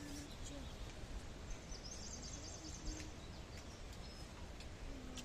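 Small birds chirping faintly, with a brief high trill about two seconds in, over a steady background hiss.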